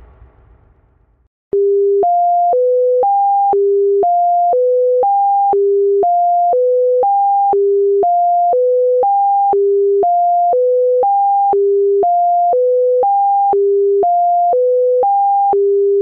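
Synthesized emergency alert attention tone: four pure beeps of about half a second each, going low, high, middle, higher, repeating every two seconds. It starts about a second and a half in, after a low rumble dies away.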